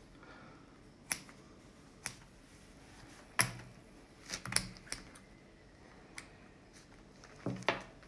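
Scissors snipping through a dead owl's ribs while opening its body cavity: a series of sharp, short clicks, about seven, irregularly spaced roughly a second apart.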